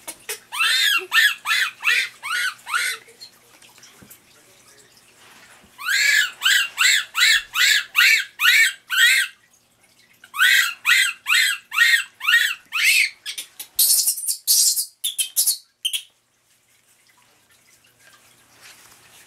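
Baby rhesus macaque crying: three bouts of shrill, repeated calls, about three a second, each call sliding down in pitch. The last calls, about two-thirds of the way through, turn into harsher, higher screeches before the crying stops.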